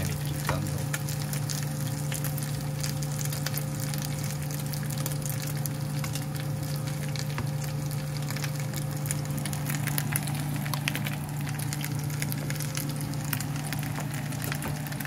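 Chicken pieces sizzling and crackling as they fry in oil in a nonstick pan, with many small pops over a steady low hum.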